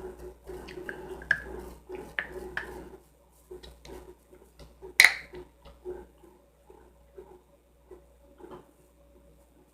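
Close-miked eating sounds: crunching and chewing of crunchy fried food, dense for the first few seconds, then slower chewing with one sharp loud crunch about halfway.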